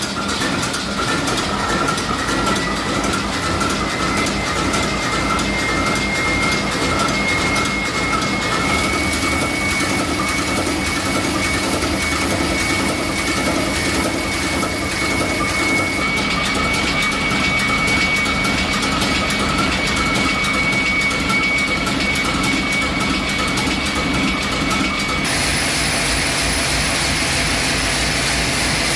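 Large old diesel engine running steadily, with a high whine that rises slightly in pitch over the first few seconds and then holds. The sound changes abruptly about 25 seconds in.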